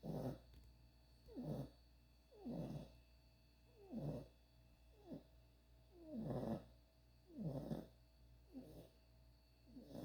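Sleeping puppy snoring, a short rasping snore about every second and a quarter.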